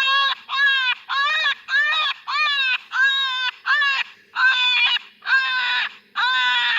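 Electronic predator call playing a prey-distress sound used to lure coyotes: a rapid, regular series of loud, high, wailing cries, about two a second, each cry nearly identical.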